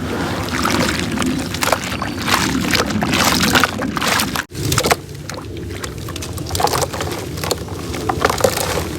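Soft, slightly damp reused cement crumbling, a dense run of small crackles and crunches, cut off for an instant about halfway through.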